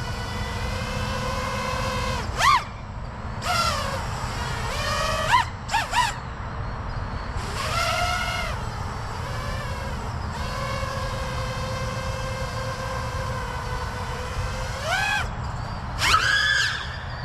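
A 5-inch FPV racing quadcopter on a 6S battery flying. Its brushless motors and propellers give a steady pitched whine, broken several times by quick rising-then-falling sweeps as the throttle is punched.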